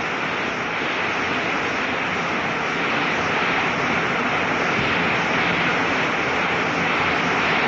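Steady noise of a large stadium crowd, heard through an old AM radio broadcast recording. It swells slightly about three seconds in.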